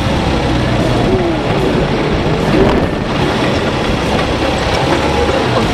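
A vehicle driving down over soft sand dunes: engine and body noise as a loud, rough, unbroken rumble.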